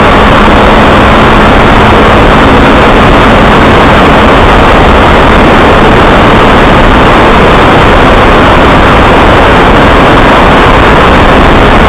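Kawasaki Ninja 250R's parallel-twin engine running at steady speed on the move, largely buried under a loud, even rush of wind noise on the camera microphone.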